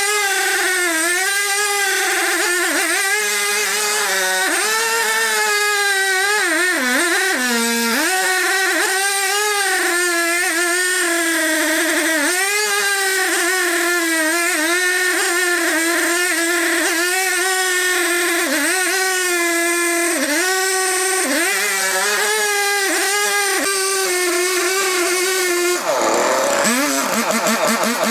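A sawmill machine's motor running at a high, steady pitch that sags and recovers again and again, as under the load of a cut. About 26 seconds in the pitch drops sharply, then climbs back.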